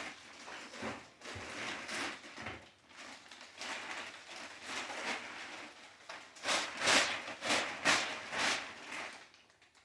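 Packaging being handled and opened: irregular rustling and scraping strokes, loudest and quickest in a cluster a few seconds before the end.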